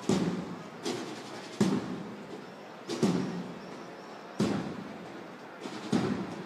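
A procession band's drum beating a slow, uneven cadence of single strikes, each one ringing on briefly after it lands.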